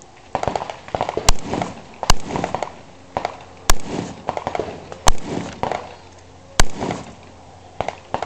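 Rifle shots fired at targets: five loud sharp cracks, spaced about one to one and a half seconds apart, with voices between them.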